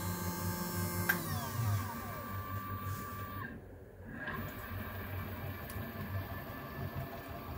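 Small CNC machine at work on a circuit board: a steady motor whine over a low hum, with tones that slide in pitch about a second in as the axes change speed.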